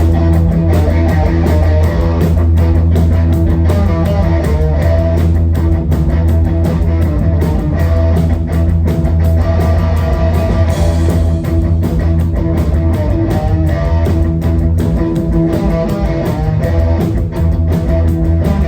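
A live rock band playing an instrumental passage: loud distorted electric guitar riffs over bass and drums.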